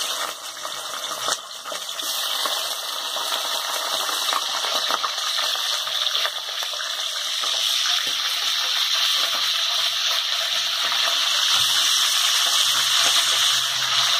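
Raw chicken pieces sizzling in hot oil, a steady crackling hiss that grows gradually louder, with one sharp knock about a second in.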